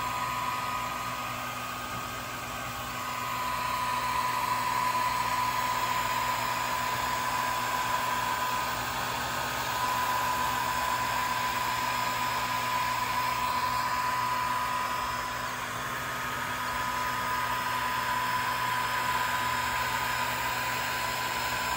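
Swiitol 18-watt diode laser engraver running while engraving: a steady fan-like whirr over a low hum, with a high, steady whine that drops out twice and comes back.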